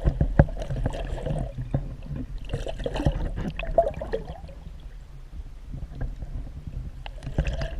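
Scattered knocks and handling noise in a kayak, with light water sounds, as a hooked brook trout is brought to the net.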